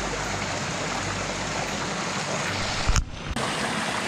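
Shallow rocky stream rushing over boulders and small cascades, a steady rush of water. About three seconds in it breaks off with a brief low thump and picks up again.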